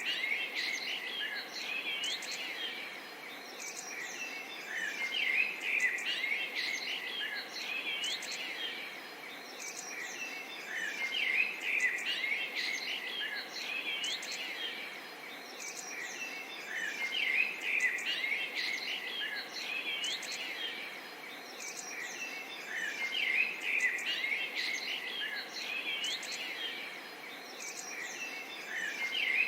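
Many small songbirds chirping and singing over a steady hiss, with quick high chirps and short whistled notes. The same stretch of song comes back about every six seconds, as a loop.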